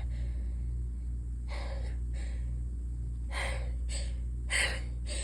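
A woman's short, gasping breaths, about seven in a row, the later ones louder: the hitching build-up before a sneeze, with her nose swollen and congested.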